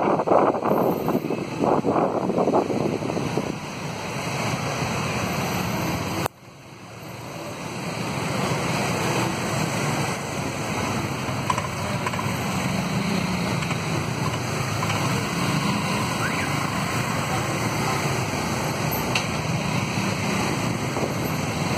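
Wind buffeting the microphone over the steady noise of street traffic and motorbike engines. The sound drops away suddenly about six seconds in and builds back up over a second or two.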